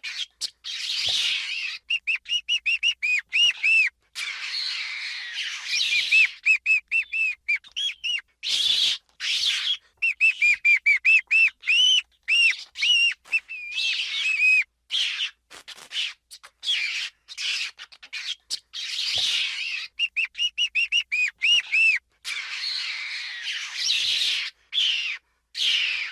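Pet ferret vocalizing: quick runs of short high squeaks, about three to four a second, alternating with breathy hissing bursts.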